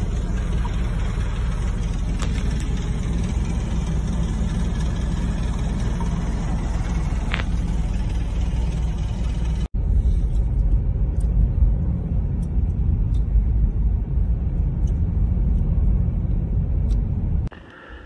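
Strong blizzard wind blowing hard on the microphone, a deep steady rush. About ten seconds in it cuts to a louder, gusting rush heard from inside a car driving through a whiteout, the wind and the car's running noise together.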